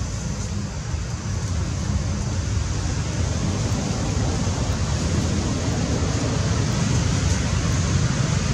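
Steady rushing noise with a heavy, fluttering low rumble, like wind buffeting an outdoor microphone.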